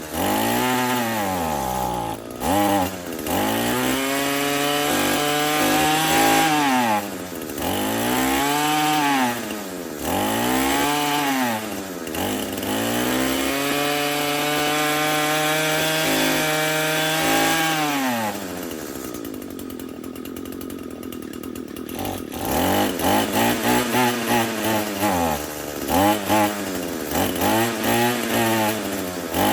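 Echo SRM-225 string trimmer's small two-stroke engine running and being revved up and down over and over, held at high speed for a few seconds, then dropping back to a low idle before being blipped in short quick bursts near the end. The trimmer is still not running right, a fuel-delivery problem in the carburetor.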